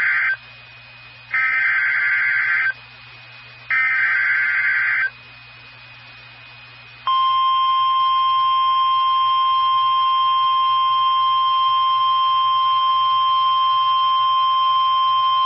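NOAA Weather Radio Emergency Alert System SAME header: the end of one burst and then two more short bursts of two-tone data warble, followed about two seconds later by the steady 1050 Hz warning alarm tone, which marks the start of a new warning broadcast. A faint hum from the radio receiver runs underneath.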